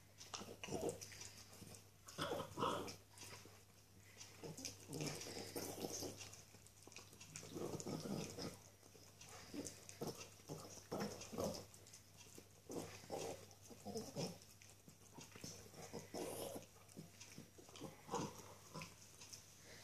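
Norwich Terrier gnawing a bone: irregular wet chewing and crunching noises, coming in uneven bursts.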